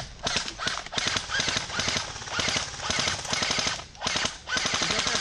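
Airsoft guns firing on full auto, rapid strings of shots in several long bursts with short pauses between them.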